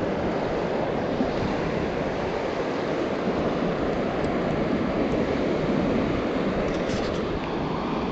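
Steady rushing of fast, turbulent water flowing down a concrete aqueduct channel, mixed with wind buffeting the microphone.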